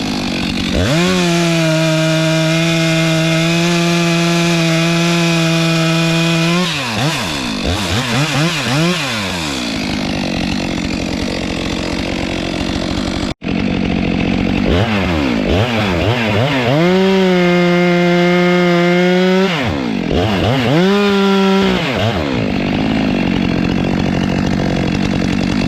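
Stihl MS 462 C two-stroke chainsaw revving up and held at full throttle for several seconds at a time, twice, with quick throttle blips and drops back toward idle in between.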